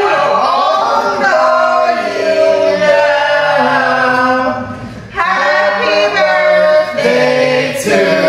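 A group of voices singing a birthday song unaccompanied, holding the notes, with a short break between phrases about five seconds in.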